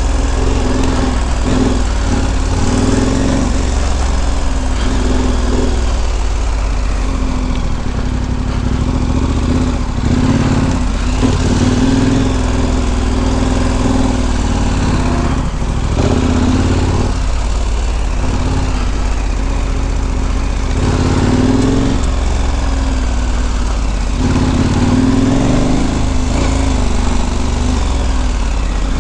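KTM 1290 Super Adventure R's V-twin engine running at low trail speed, its note rising and falling a little with the throttle, over a steady hiss.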